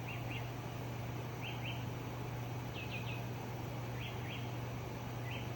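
A bird repeating a short two-note chirp about every second and a half, over a steady low hum.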